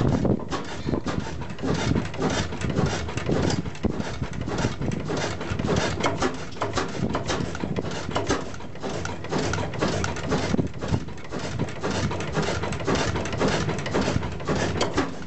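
1907 12hp Blackstone horizontal single-cylinder oil engine running on kerosene, its valve gear and firing making a steady, fast patter of mechanical knocks and clicks.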